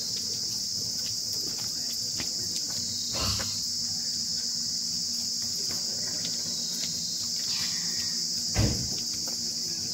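Steady, high-pitched insect chorus droning without a break, with a dull thump about three seconds in and a louder one near the end.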